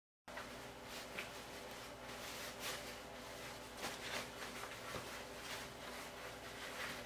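Faint rustling and soft handling noises of a baby floor seat's fabric cover being tucked and clipped under its plastic frame, with a few short louder rustles scattered through, over a steady low room hum.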